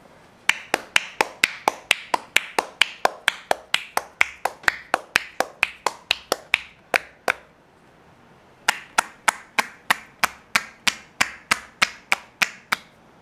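Percussive massage on a bare back: hands slapping the skin in sharp claps, about four to five a second, in two runs broken by a pause of about a second and a half midway.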